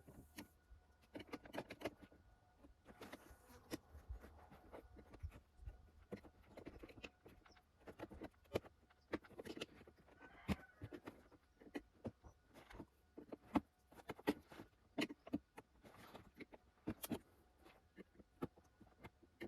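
Irregular clicks and taps of plastic as a tool pries a trim cover off a Lada Vesta door card, working its tabs loose.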